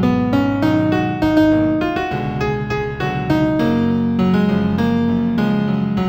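New age instrumental music in F major, led by piano: quick repeated notes over held low notes, with a melody stepping upward in the first two seconds.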